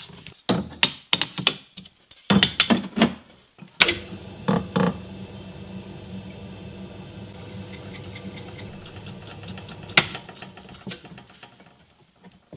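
Knocks and slaps of wet abrasive paper being laid and pressed onto the disc of a metallographic grinding machine. About four seconds in, the machine runs with a steady hum and hiss while a cast bronze section is held against the spinning 1200-grit paper under the water feed, with one sharp click about ten seconds in. The run dies away near the end.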